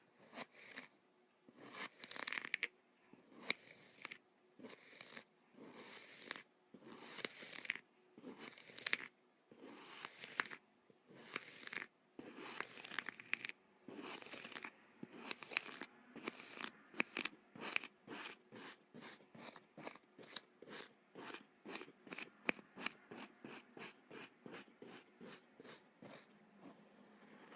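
Kinetic sand crunching under repeated strokes, each a short crisp rasp. The strokes come about once a second at first and quicken to two or three a second in the second half.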